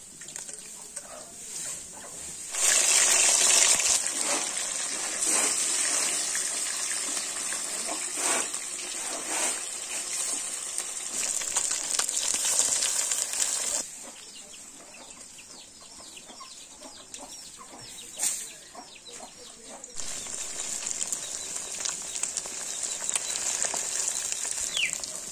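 Small whole fish sizzling in hot oil in a wok. The sizzle starts suddenly and loud a few seconds in, turns softer about halfway through, then grows louder again.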